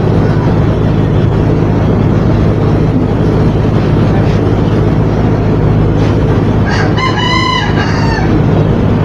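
Window-type inverter air conditioner running with a steady hum and hiss while R32 refrigerant is charged through its low side. A rooster crows once, about seven seconds in.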